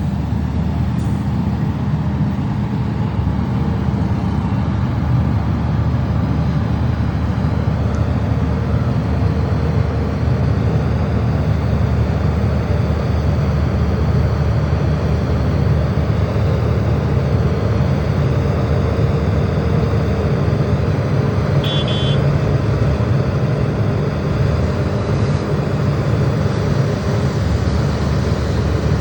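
Heavy diesel engine of an Ashok Leyland tipper truck running steadily, a deep rumble that holds level throughout, with a brief high chirp about 22 seconds in.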